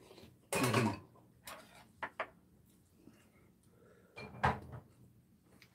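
Mealtime eating sounds: a loud slurp of ramyun noodles about half a second in, then a few sharp clicks of metal chopsticks against ceramic bowls, around two seconds in and again about four and a half seconds in.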